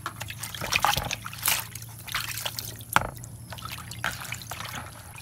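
Water trickling and splashing as raw shrimp are swished by hand in a plastic basin of water, with a few sharper splashes and drips from a plastic colander basket.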